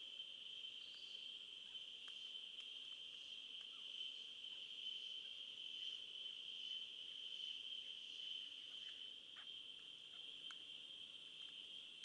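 Faint, steady high-pitched insect chorus, one unbroken shrill tone, with a few faint short ticks over it.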